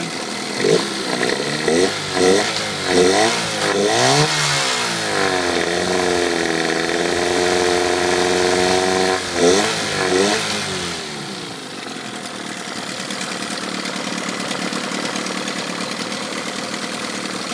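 Mid-1990s Gamefisher 15 HP two-cylinder two-stroke outboard, cowling off and fitted with a new CDI electronic ignition, revved by hand at the throttle linkage. There are several quick blips in the first four seconds, a higher speed held for about four seconds, and two more blips. It then settles back to a steady idle about eleven seconds in.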